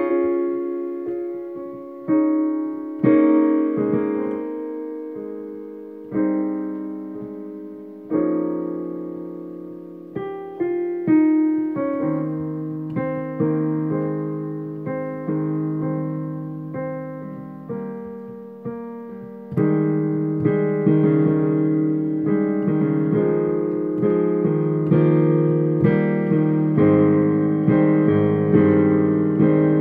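Digital piano playing a slow, gentle improvised piece: chords struck every second or two and left to ring and fade. About two-thirds of the way in the playing turns fuller and louder, with notes struck in a steady pulse.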